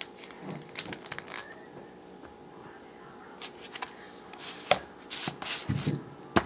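Food packaging being handled while a sandwich is made: rustling with scattered sharp clicks, two loud clicks near the end.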